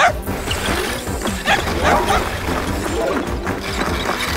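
A cartoon dog making several short, gliding calls over background music.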